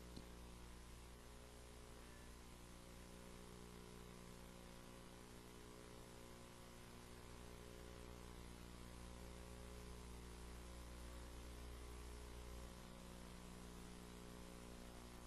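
Near silence: a steady low electrical mains hum with faint hiss.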